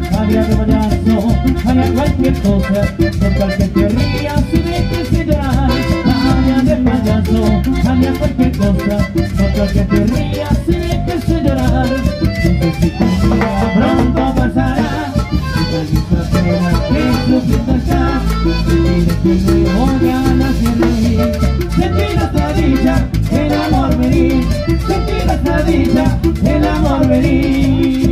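Live band playing a Latin dance tune on button accordion, electric bass, acoustic guitar and timbales, with a steady beat.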